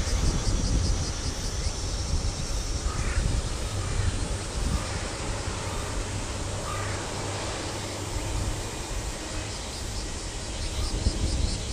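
A crow cawing a few times, short separate calls over a steady low rumble of wind on the microphone.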